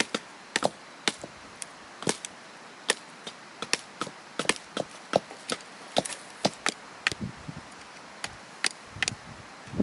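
Chopping with a blade: sharp, irregular knocks, about two or three a second, with some low handling rustle in the later seconds.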